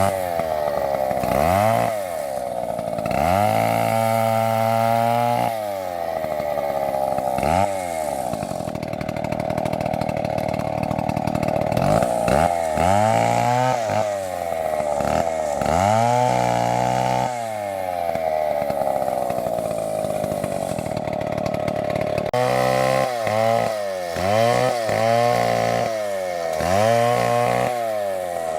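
Two-stroke chainsaw cutting wood, its engine speed dipping and climbing again every second or two, with a steadier high run for a few seconds in the middle.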